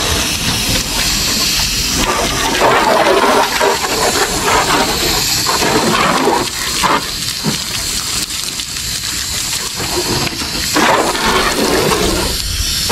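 Water spraying from a hose onto a car's body to soak it before washing, a continuous rushing spray whose strength shifts every second or two.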